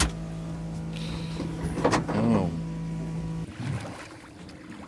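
Small kicker outboard motor running steadily at low speed, with a single knock about two seconds in; the motor sound cuts off abruptly about three and a half seconds in, leaving a quieter background.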